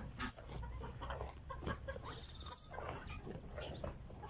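A camel chewing a mouthful of bell pepper, with irregular wet crunches, the loudest at about a third of a second in and again about a second later. Short high bird chirps and clucking sound in the background.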